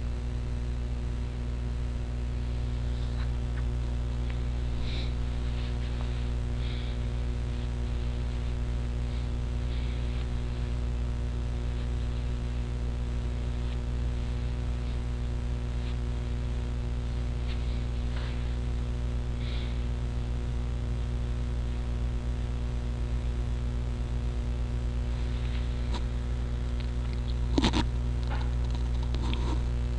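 Steady low electrical mains hum, buzzy and unchanging, with a few faint short sounds and one brief knock near the end.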